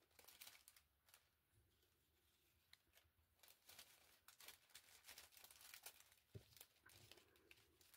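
Near silence, with faint rustling and light ticks of small paper die cuts and tags being handled, more frequent in the second half.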